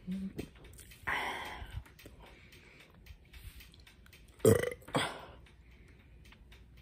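A person burping after a big sip of Coca-Cola. There is a breathy burp about a second in, then two loud, short burps close together about four and a half seconds in.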